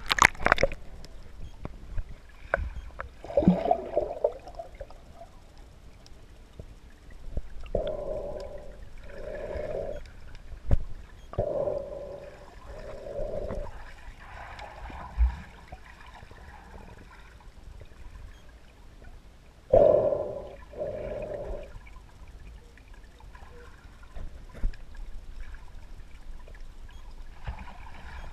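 Swimming-pool water heard from underwater through the camera's housing: muffled gurgling and splashing from children swimming and kicking. There is a sharp splash at the very start, and several short muffled bursts come through, mostly in pairs.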